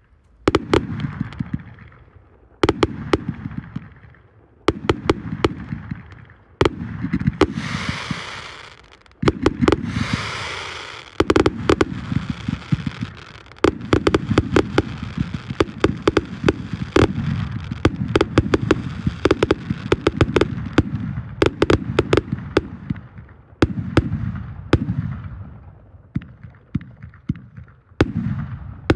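A 368-shot consumer firework cake firing: a rapid string of launch thumps and aerial bursts with crackling, coming in surges every couple of seconds that each die away.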